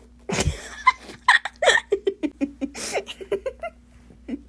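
A thump about half a second in, then a person laughing in short, choppy bursts.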